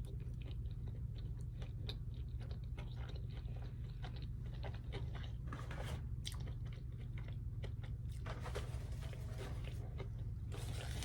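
Close-up chewing and biting: irregular small wet clicks and crunches of a person eating, over a steady low hum.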